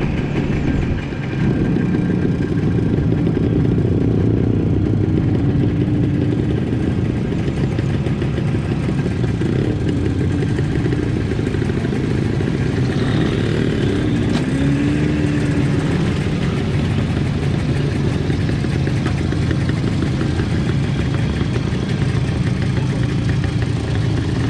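Engines of a small group of vintage motorcycles and scooters running at low speed while riding in a line, the nearest one loud and steady. Near the end the riders have stopped and the engines are idling.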